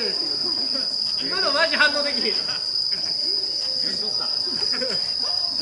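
Steady, unbroken high-pitched drone of night insects, such as crickets, with players' voices calling out about a second and a half in.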